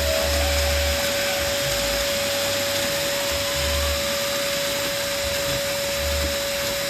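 Electric air pump running steadily as it blows up a balloon: a rush of air with a constant whine.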